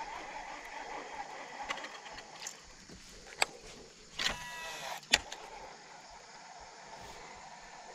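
A cast with a Shimano SLX DC baitcasting reel: a sharp click as the spool is freed, then a brief whine of the spool spinning out as the line pays off, cut off by a second sharp click as the reel re-engages about a second later.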